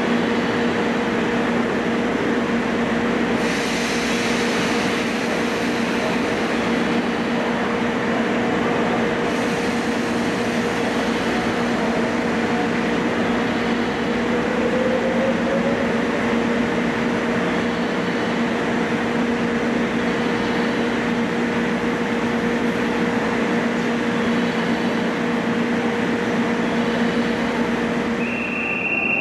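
Thunderbird limited-express electric train humming steadily at the station: a noisy drone carrying two steady low tones, with a faint short rising whine about halfway. Near the end the hum cuts off and a high steady tone begins.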